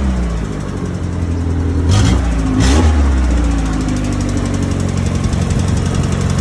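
Suzuki Jimny Katana's F10A four-cylinder engine running: it is revved up and back twice about two seconds in, then settles to idle. Through it runs a rapid, even tek-tek-tek ticking, the loud mechanical noise that the owner complained of and that led to the engine being taken apart.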